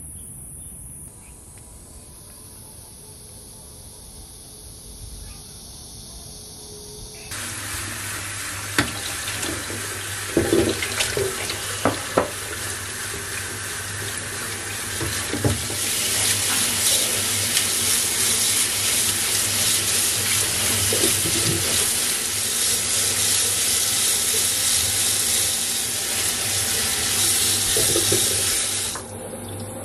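Kitchen tap running into a stainless steel sink and over a glass bowl while hard-boiled eggs are peeled under the stream, with a few sharp knocks along the way. The water starts about a quarter of the way in, grows louder around the middle and stops just before the end.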